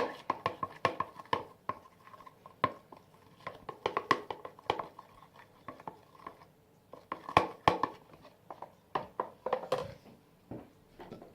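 A spoon stirring a homemade slime mixture in a bowl: quick, irregular clinks and taps against the bowl's sides in runs of several a second, with a short pause partway through.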